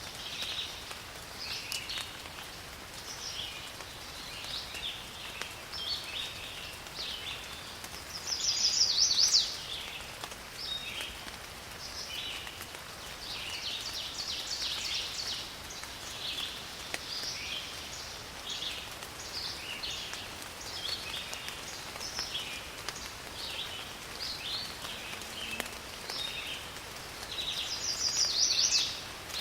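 Steady rain falling in a forest, with many birds chirping throughout. A louder call swells and then cuts off sharply, twice: about nine seconds in and near the end.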